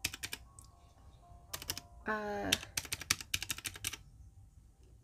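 Paper banknotes being counted by hand, each bill flicked off the stack with a crisp snap. There are a few snaps at the start, a brief vocal hum about two seconds in, then a quick run of snaps, about six a second. Faint music plays underneath.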